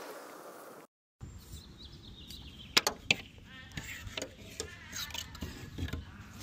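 Sharp clicks and short raspy scrapes of a metal magnetic pickup tool being worked down between a car's door glass and window frame, probing for the lock inside the door. Two sharp clicks a little under three seconds in are the loudest, over a low rumble.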